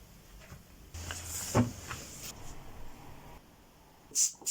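Quiet household handling sounds with a soft knock about a second and a half in, then two quick squirts of a spray bottle near the end.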